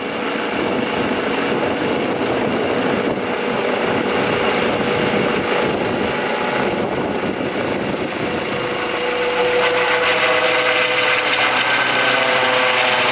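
Airbus H135 twin-turbine helicopter climbing out overhead after takeoff: steady rotor and turbine noise with a high whine. It grows louder, with wavering tones, from about nine seconds in as it passes over.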